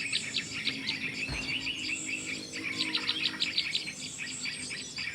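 Small songbirds calling: fast trains of sharp, high chirping notes, several a second. About a second in they give way to softer twittering, and the fast chirping picks up again around three seconds in.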